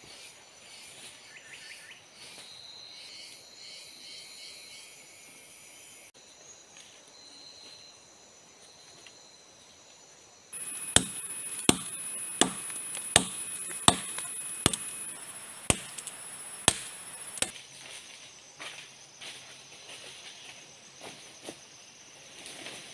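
Jungle insects trilling steadily, then about halfway through a blade chopping into wood: about nine sharp strokes roughly a second apart, the loudest sounds, over a continuing high insect drone.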